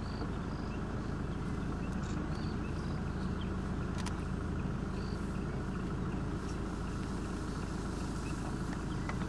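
Game-drive vehicle's engine idling steadily, with a few faint short high chirps and one brief click about four seconds in.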